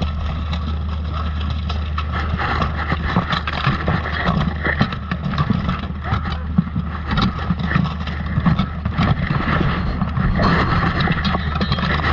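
Plate armour knocking and scraping in a close grapple, with many short metallic knocks over a steady low rumble of cloth rubbing against the microphone.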